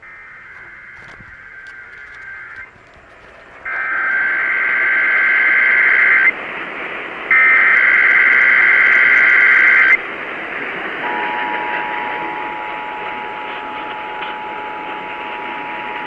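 Emergency Alert System broadcast over radio hiss: three bursts of SAME digital header data, a buzzy warbling screech, each about a second apart, the first much fainter than the other two. About eleven seconds in, the steady two-tone EAS attention signal starts.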